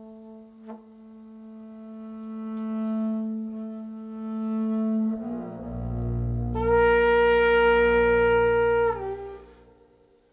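Improvised music: a double bass bowed in long held notes, with a deep low note swelling in about five seconds in. A loud, bright held tone joins about seven seconds in, bends down slightly near nine seconds, and the sound then fades away.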